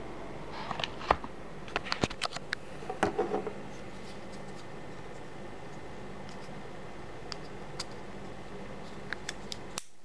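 Hand handling of a Leatherman Crater c33Lx folding knife: a cluster of sharp metallic clicks and light scraping in the first few seconds, then a few scattered single clicks near the end.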